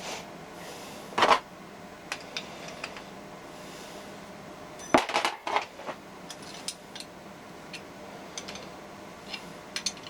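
Metal pieces clinking and knocking together: two louder knocks, about a second in and about five seconds in, then a string of light, ringing metallic ticks.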